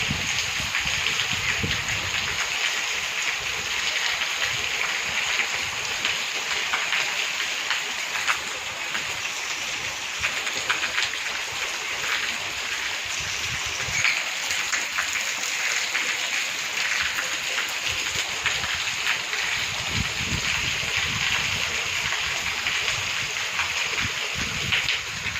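Heavy rain falling steadily: a continuous hiss of drops with scattered sharper patters.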